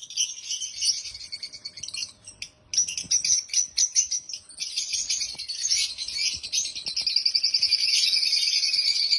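African lovebirds chirping and chattering: a dense flock of high-pitched chirps with a short break about two and a half seconds in, turning to a fast, continuous chatter near the end.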